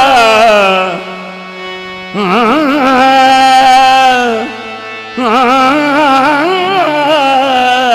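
Qawwali singing: a lead vocalist sings long, ornamented melismatic phrases over sustained harmonium chords. The voice drops out twice, about a second in and again past the middle, leaving the harmonium holding its notes before the singing returns.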